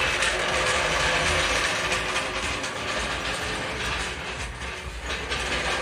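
Steel trolley jack rattling and clicking as it is wheeled by its handle across a concrete floor.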